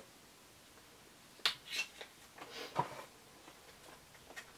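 Faint handling sounds of a lip balm tube being unsealed and opened: a few small clicks and rustles between about one and a half and three seconds in, and one more click near the end.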